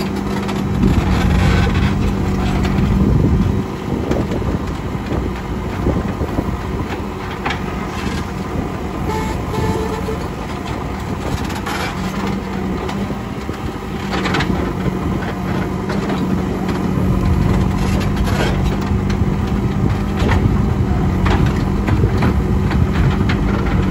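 JCB 3CX backhoe loader's diesel engine running steadily under work, with scattered sharp knocks through it. The engine gets louder about a second in, drops back at about three and a half seconds, and rises again from about seventeen seconds.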